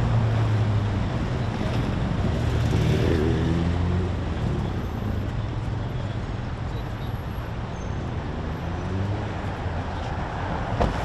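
An engine running with a steady low hum over street noise. It is loudest for the first four seconds, then eases off.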